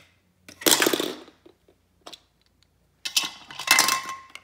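Hard plastic toy pieces clattering and rattling against a plastic toy Ferris wheel in two bursts, each about a second long, with a few single clicks between them.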